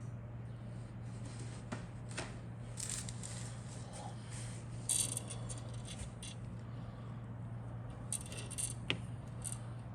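Handling of a plastic model kit's parts and packaging: scattered light clicks, taps and rustles, a few sharper ones, over a steady low hum.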